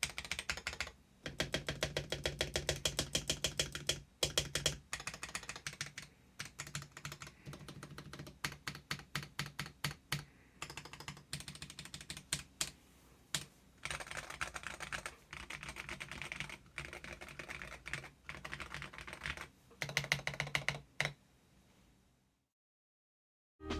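Typing on a Womier K66 mechanical keyboard fitted with Akko CS Rose Red linear switches: rapid keystrokes in bursts with short pauses, stopping near the end.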